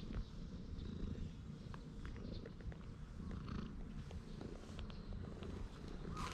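Cat purring, a low steady rumble, while being stroked: a sign of a contented cat.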